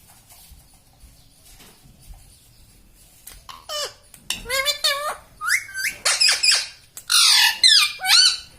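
Indian ringneck parakeet giving a quick run of shrill squawks and chattering calls, the pitch sliding up and down, starting about three seconds in.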